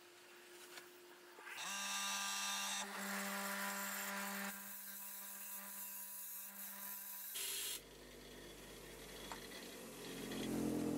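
Bench grinder running with a small brass knife guard held against its wheel and ground, a steady motor hum under a grinding hiss. The hiss stops suddenly about seven seconds in, leaving a lower hum that grows louder near the end.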